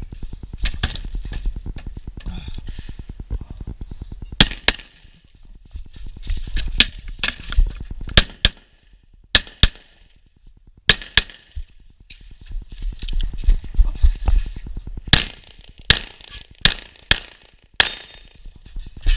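Rapid pistol fire from an STI Trojan 1911 in .38 Super, mostly in quick pairs of shots with gaps of one to two seconds between pairs, over a steady low rumble.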